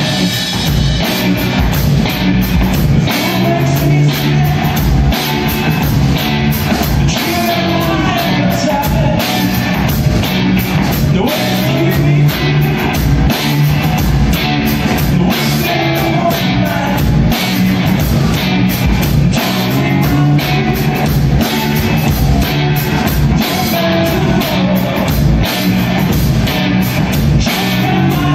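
Rock band playing live: electric guitars through amplifiers and a drum kit keeping a steady beat, loud and continuous.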